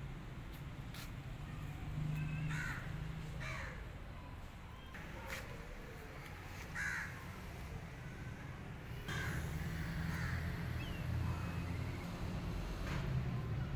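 Crows cawing: about half a dozen short, harsh calls spread through, over a steady low hum.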